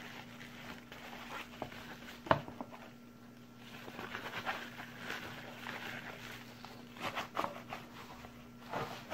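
Plastic bags and bubble wrap rustling and crinkling as packed parts are handled in a cardboard box, with one sharp knock about two seconds in.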